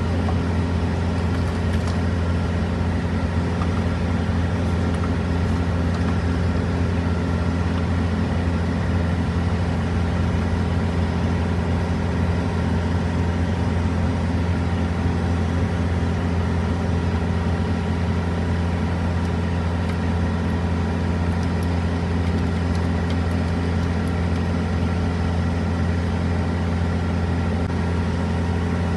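Semi truck's diesel engine idling steadily, an even hum that does not change.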